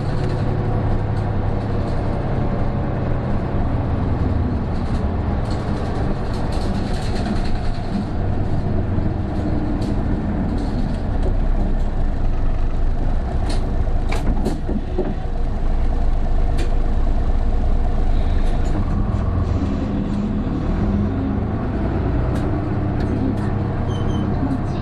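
Isuzu Erga PJ-KV234L1 city bus's turbo-diesel engine running under way, heard from inside the cabin, its note rising and falling with road and engine speed. A few sharp clicks or rattles come about halfway through.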